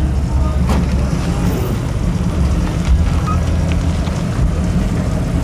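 Low, steady rumble of a vehicle engine running nearby.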